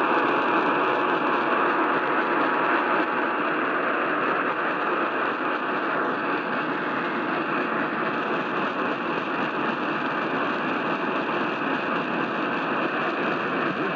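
Steady radio static hiss, with a faint steady whine underneath that fades out a few seconds in.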